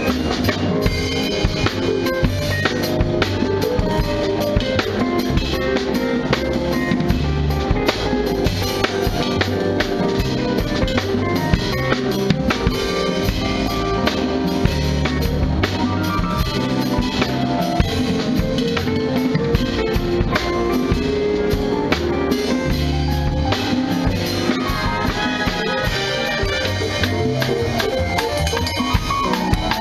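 Jazz band playing, with the drum kit heard up close: cymbals, snare and bass drum keeping a busy beat under the band's sustained chords.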